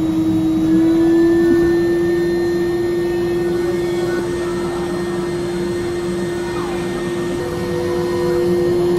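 Vacuum pump of a robotic ice cream vending machine's suction-cup gripper running steadily while the gripper holds a packaged ice cream: a loud, even hum with a single steady whining tone.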